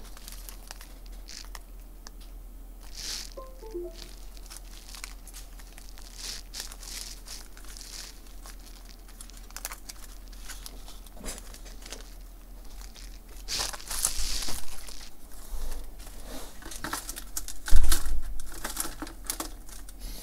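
Crinkling and rustling of handled packaging, with scattered clicks and small knocks, loudest about 14 and 18 seconds in.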